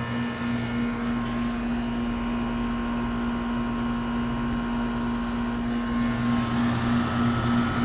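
Goodman heat pump outdoor unit running in heat mode: a steady electrical hum from the compressor over the even whoosh of the condenser fan.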